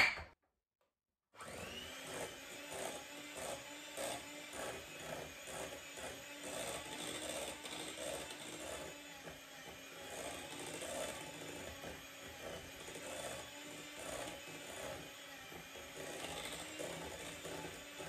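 Electric hand mixer running with its beaters in a glass bowl of cake batter: a steady motor hum with a churning, swelling-and-fading mixing sound. It starts about a second in, after a short silence, and it is mixing in just-added milk to thin the batter.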